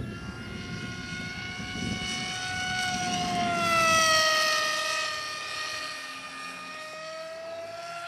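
AXN Clouds Fly Floater RC plane's electric motor and propeller whining at full throttle during a fast pass. The whine is loudest about four seconds in, its pitch dropping as the plane goes by, then climbing again near the end.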